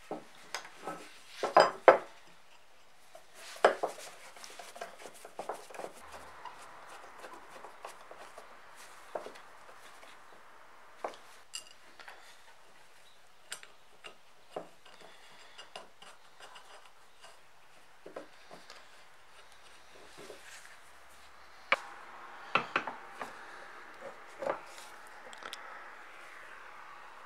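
Small metal parts of a sharpener clinking and knocking as they are handled, set down and fitted together by hand on a wooden workbench. Scattered sharp clicks, with a loud cluster of knocks about two seconds in and another run of knocks near the end.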